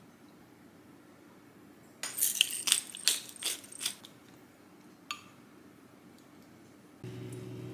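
Wooden spoon clinking and knocking against a glass bowl while stirring a gochujang sauce: a quick run of sharp clinks about two seconds in, and one more about five seconds in. Near the end a steady low hum begins.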